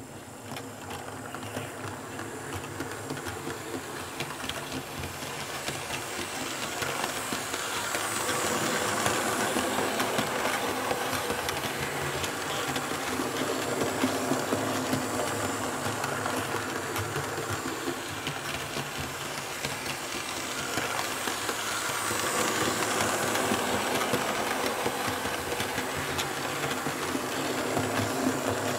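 Märklin H0 E41 electric model locomotive and coaches running on Märklin K-Track: a steady whirr of the motor with the wheels rumbling and rattling on the rails. It swells and fades as the train laps the oval, rising over the first several seconds, easing off a little past halfway, then growing again.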